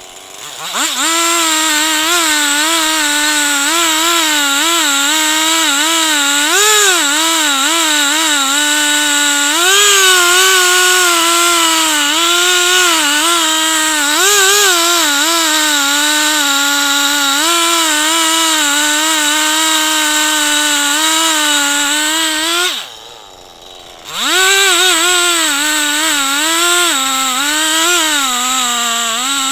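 Two-stroke chainsaw on a chainsaw mill revving up and running at high throttle, its pitch wavering as it cuts a log lengthwise into planks. About 23 seconds in the throttle is let off and the engine drops briefly before revving back up.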